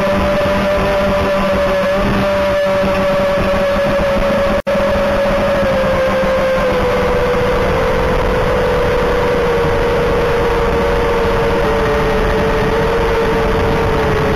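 Eachine Wizard X220 racing quadcopter's brushless motors and propellers whining steadily in flight, the pitch sinking a little over the second half. The sound cuts out for an instant about four and a half seconds in.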